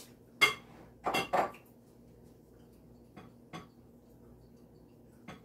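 Dishes and utensils clinking and knocking: a sharp ringing clink about half a second in, a quick cluster of knocks around a second in, then a few lighter taps.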